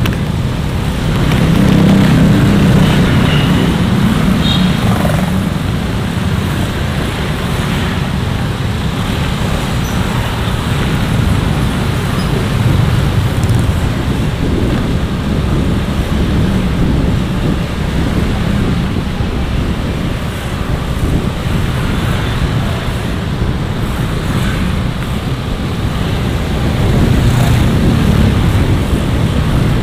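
Steady road and engine noise from riding a motorcycle through street traffic, among other small motorbikes and scooters. It swells louder about two seconds in and again near the end.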